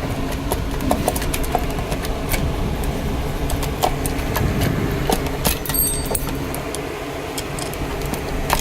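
Scattered metallic clicks and clinks of hand tools and bolts as the valve cover is unbolted, over a steady low rumble.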